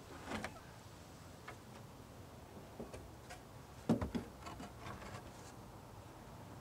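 A scatter of light wooden knocks and clicks from a chicken coop's wooden hatch being handled and opened, the loudest knock about four seconds in, followed by a quick run of smaller clicks.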